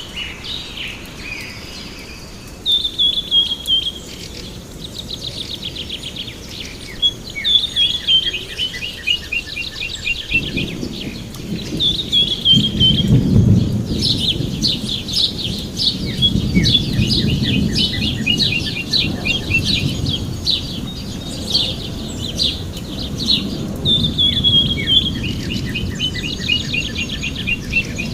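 Birds singing, with short chirping phrases repeated over and over, many ending in quick falling notes. From about ten seconds in, a low rumble sits underneath the song.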